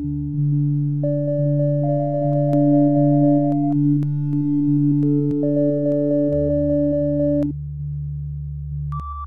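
Pendulum loop of sine-tone samples played back from a 1010 Music Blackbox sampler: several steady pure tones at different pitches overlap, switching on and off. Sharp clicks mark where samples start and stop: pops from zero crossings that the Blackbox does not smooth out. The loop cuts off about nine seconds in.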